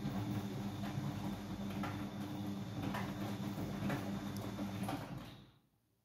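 Siemens iQ100 front-loading washing machine in its main wash, the drum turning with a steady motor hum and the laundry falling in the drum about once a second. The sound cuts off suddenly about five and a half seconds in.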